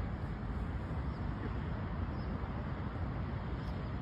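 Steady low rumbling background noise with no distinct strike or voice.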